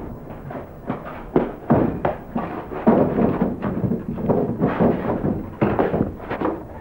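A run of irregular thumps and knocks, a dozen or so of uneven loudness, coming close together.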